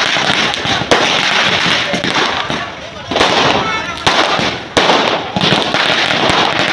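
Aerial fireworks going off: repeated sharp bangs a second or two apart, each followed by dense crackling.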